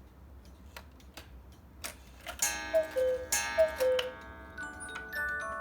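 Hones cuckoo clock: the pendulum ticks, then the cuckoo calls twice, each call a high-then-low pair of notes with a ringing strike. About a second later the clock's music box starts playing a tune.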